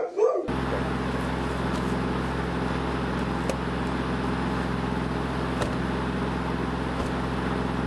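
Steady drone of a car on the move: engine hum under road noise, cutting in suddenly about half a second in.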